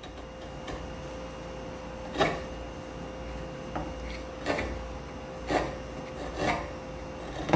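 Sharp bench chisel paring end grain along a convex curve in wood by hand. It makes five short slicing strokes, about one a second after the first couple of seconds.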